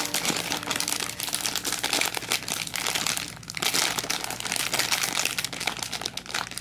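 Thin clear plastic bag crinkling and crackling continuously as hands squeeze and turn a large foam bread squishy through it, easing off briefly about three and a half seconds in.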